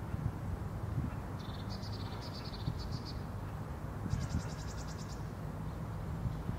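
A songbird giving two rapid high-pitched trills, one about a second and a half in and another around four seconds in, over a steady low background rumble.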